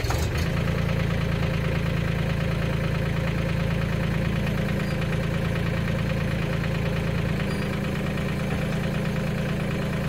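Mahindra 1626 compact tractor's diesel engine idling steadily, just after being started.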